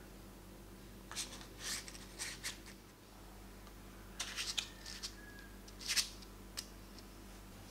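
A spoon scraping thick muffin batter off into paper muffin liners, heard as two clusters of short scrapes and crinkles, the first about a second in and the second from about four seconds in.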